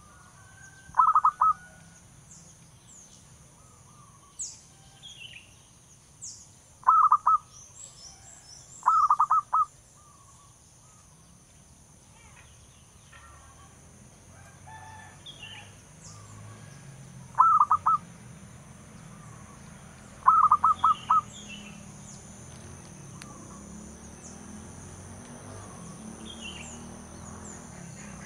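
Zebra dove (perkutut) cooing: five short bursts of rapid staccato coo notes, each about a second long, coming in loose pairs.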